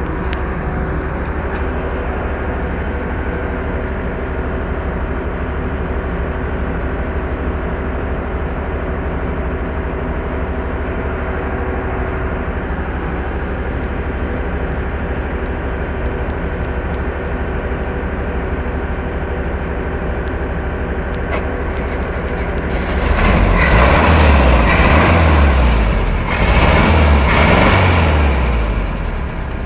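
Freshly rebuilt VW Beetle air-cooled flat-four engine idling steadily, then revved up twice near the end before dropping back to idle.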